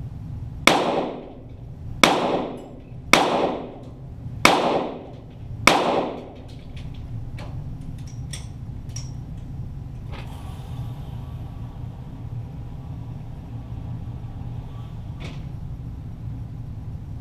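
Five .22 Walther GSP target pistol shots about a second apart, each followed by a decaying echo, then a few faint clicks.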